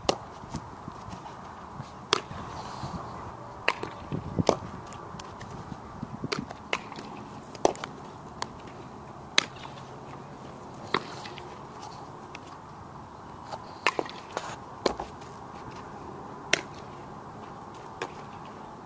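Softball smacking into leather gloves during an infield fielding and throwing drill: sharp pops at irregular intervals, sometimes two close together, over a steady hiss.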